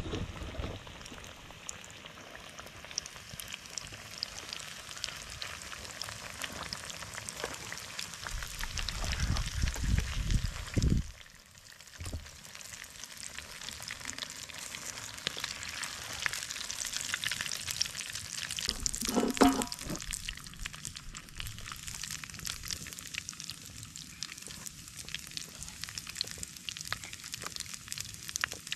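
Batter-coated potato pieces (viazi karai) deep-frying in hot vegetable oil: a steady sizzle with constant fine crackling. A low rumble rises over it from about eight to eleven seconds in and stops abruptly, and a brief pitched sound comes near nineteen seconds.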